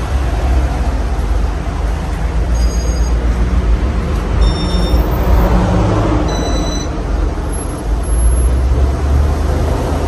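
A 52-inch Casablanca California Zephyr ceiling fan running with four South Seas blades: a steady rush of moving air with a deep rumble underneath.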